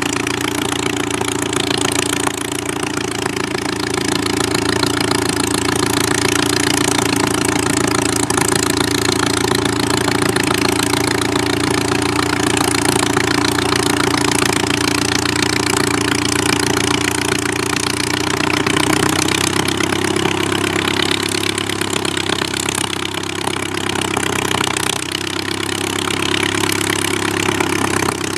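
Bücker Jungmann CASA 1.131 biplane's piston engine and propeller running steadily at low power as it taxis on grass. The engine note shifts slightly about two-thirds of the way through and dips briefly near the end.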